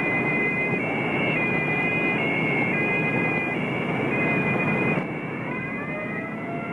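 Emergency vehicle two-tone siren, switching between a high and a lower note roughly every three-quarters of a second over a loud, rough background noise. About five seconds in the noise drops away and a siren is heard winding up, its pitch rising.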